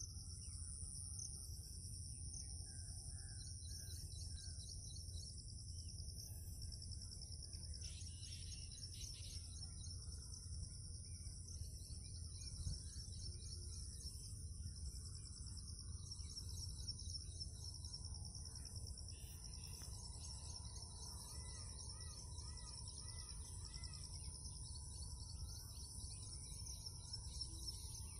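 A steady chorus of insects, two high shrill trills going on without a break, with a bird calling over and over in the second half, under a low steady rumble.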